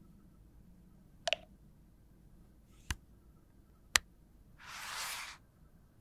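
Hard plastic clicks from a black lip palette compact with a hinged mirror lid being handled, shut and set down: three sharp clicks, the first doubled and the last the loudest. About a second later comes a brief rushing scrape lasting about half a second.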